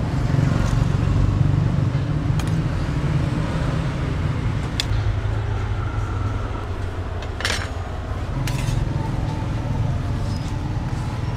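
Steady low rumble of background noise, with a few sharp metallic clicks and scrapes as a metal spoon and a flat spatula work against the pancake pans and bowl.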